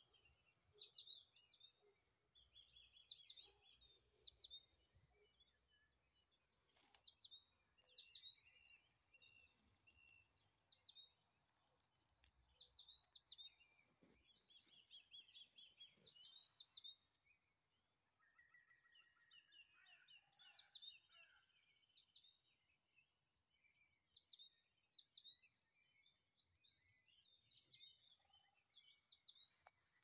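Faint woodland birdsong: several songbirds singing at once, with short high phrases and quick trills repeated over and over.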